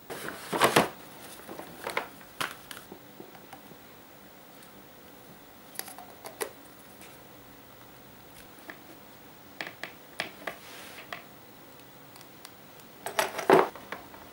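Hard plastic tool case and its contents being handled: sharp clicks and knocks as the case is opened and a hand vacuum pump and small plastic fittings are lifted out of the moulded tray. The loudest clicks come in the first second and again about thirteen seconds in, with a few lighter rattles between.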